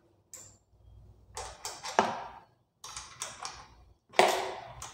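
Metal spanner working the cable anchor nut on a bicycle V-brake, loosening it to free the brake cable: a string of sharp metallic clicks and short rasps, the loudest about two seconds in and just past four seconds.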